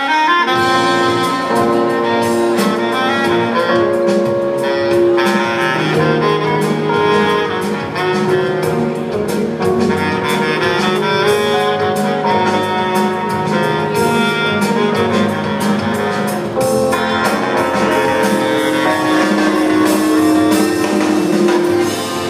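Live band playing an instrumental passage of a song: a held lead melody over chords, bass and drums, with no singing.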